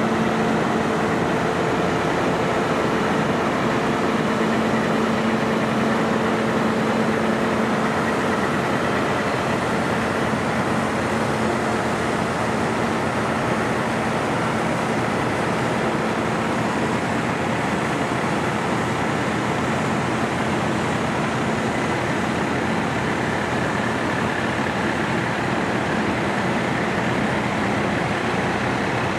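Parked heavy rescue fire truck running, a steady mechanical hum with a faint droning tone that eases in the second half.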